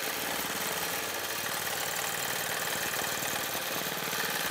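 Gammill longarm quilting machine stitching steadily, the needle running at a fast, even rhythm as it is guided freehand across the quilt. The machine is running in constant-speed mode rather than stitch-regulated mode.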